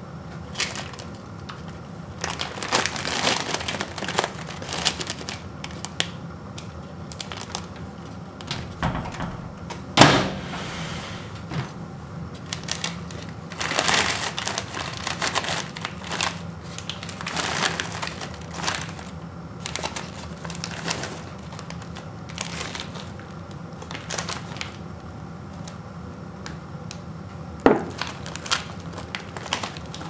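Paper microwave popcorn bag crinkling and rustling in repeated bursts as it is pulled open by hand, with two sharp paper snaps, the louder one about a third of the way in.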